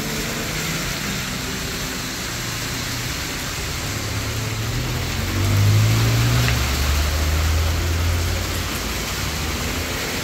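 Heavy rain falling steadily on a road, with a car approaching and driving past on the wet pavement, its engine loudest a little past halfway.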